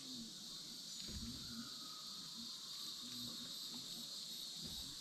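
Steady chorus of insects in the woods, a constant high-pitched drone with no break.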